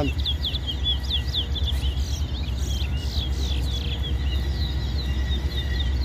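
Caged competition songbirds singing rapid runs of high chirps and short down-sweeping notes, under a steady low rumble.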